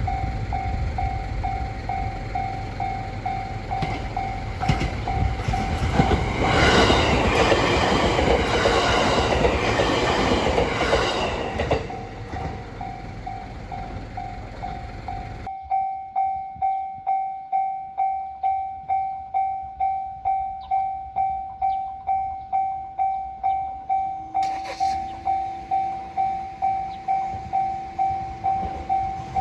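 Japanese level-crossing warning bell ringing steadily at about two strikes a second, while a train runs through with the rumble and clickety-clack of its wheels, loudest about seven to eleven seconds in. The train noise drops away about halfway through, leaving the bell, and a low steady hum sets in near the end.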